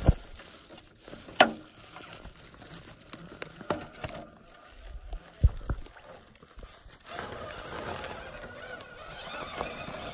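Electric RC rock crawler working over rock: a few sharp knocks of tyres and chassis against stone, then from about seven seconds in a steady faint whine of the motor and gears as it drives off.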